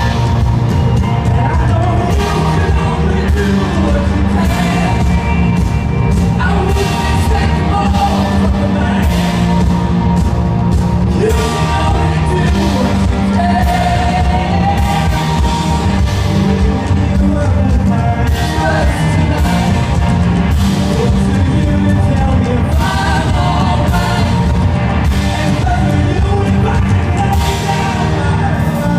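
Live rock band playing through a festival PA: electric guitars, bass and drum kit, loud, with a steady drum beat and a wavering lead line over it.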